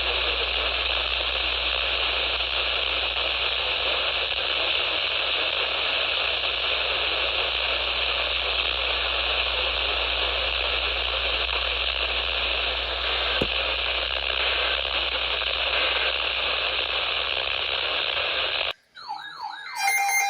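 Steady radio static hiss with a low hum underneath from a radio receiver with no signal. Near the end it cuts off abruptly and warbling, gliding electronic tones begin.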